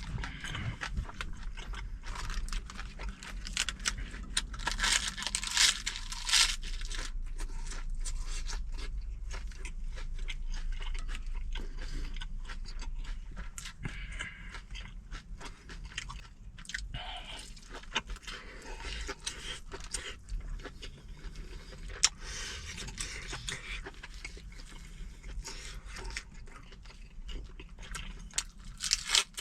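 Close-up chewing and crunching of fresh napa cabbage kimchi and boiled pork, with wet mouth sounds and bursts of crisp crunching. A steady low rumble runs underneath.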